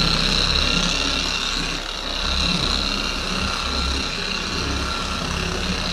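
Griot's Garage G9 random orbital polisher running steadily on its lowest setting, speed 1, a foam pad working compound on a painted panel. A steady motor hum with a high whine above it.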